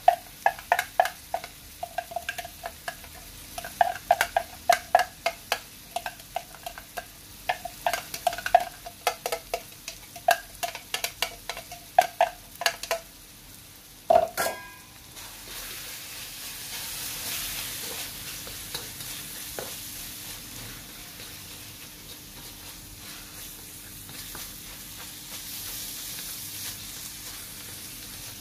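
Repeated quick knocks ringing on a carbon-steel wok for about the first 13 seconds, then one louder knock about 14 seconds in. After that comes the steady sizzle of minced pork and diced carrots frying in the hot wok.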